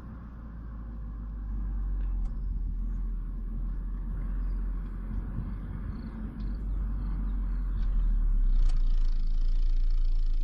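Stock 2018 Audi A5 on the move, a steady low engine and road rumble that grows louder about a second and a half in and again about eight seconds in.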